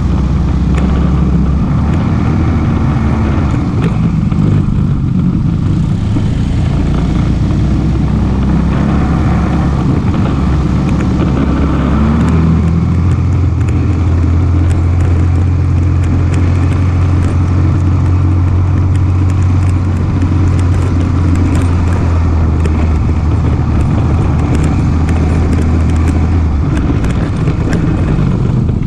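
ATV engine running continuously under way; its note shifts about twelve seconds in and then holds steady.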